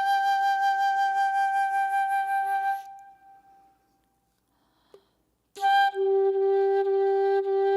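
Flute-like wind instrument music: two notes sounded together and held steady for about three seconds, then fading out. After a short silence with a faint click, held notes start again near the end.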